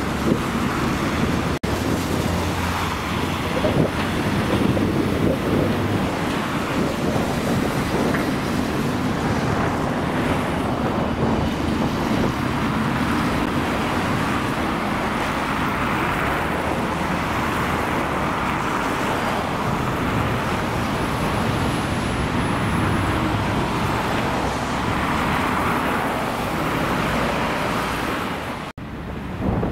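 A tram running along its rails among steady street traffic noise, with wind on the microphone. The sound drops out briefly twice, about a second and a half in and about a second before the end.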